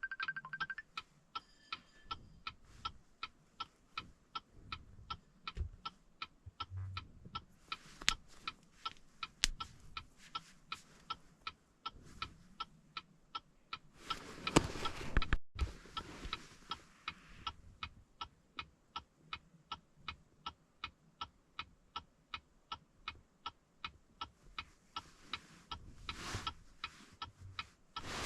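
Steady, even ticking, about two to three clicks a second, like a relay or clock. A louder rush of noise about halfway through is cut off suddenly.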